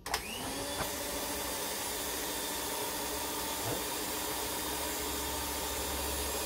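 Electric stand mixer running steadily, its beaters whirring through chocolate cake batter in a turning bowl, with an even motor hum. The sound cuts in abruptly at the very start.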